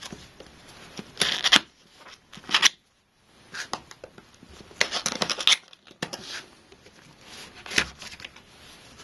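Anti-tampering safety tape seals on a cardboard graphics card box being cut, heard as several short scratchy rasps and clicks with handling of the box between them.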